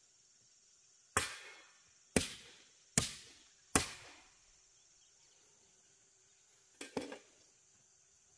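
A hoe's blade chopping into the soil: four heavy strikes about a second apart, then two quick strikes near the end.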